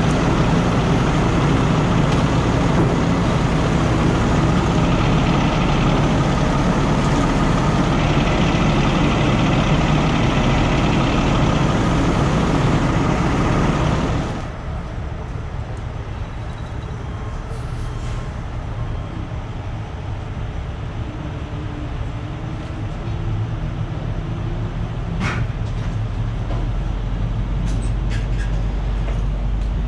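Diesel engine of a heavy rotator tow truck running steadily close by. About halfway through the sound drops suddenly to a quieter, lower running of truck engines further off.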